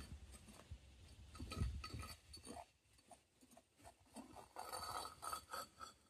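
Faint clinks and knocks, a few at a time, with a louder cluster of clinks that ring briefly near the end.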